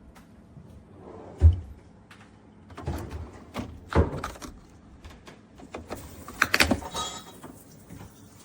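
A series of knocks and clunks from objects being handled: a heavy thump about one and a half seconds in, two more knocks soon after, and a short rattling clatter near the end.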